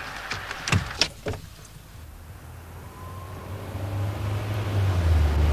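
A few sharp clinks and knocks in the first second and a half, the tail end of a car crash, then a car engine getting steadily louder from about three seconds in as a car approaches.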